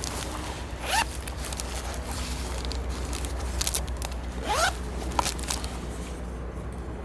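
A zipper pulled in two quick strokes, about a second in and again past four seconds, with small clicks and rustles of gear between.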